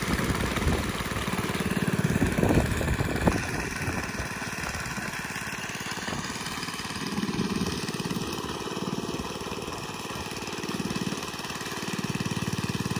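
Small petrol engine of a walk-behind power trowel running steadily as it floats and trowels fresh concrete, swelling louder a few times.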